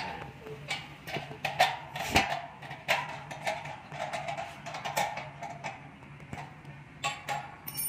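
Irregular clicks and knocks, a few each second, over a faint steady low hum.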